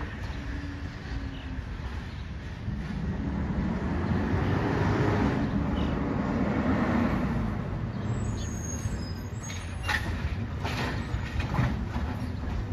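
Mack LR automated side-loader garbage truck's engine running, swelling as the truck pulls forward and easing off as it slows. A brief high brake squeal follows, then a few sharp knocks near the end as it stops at the next carts.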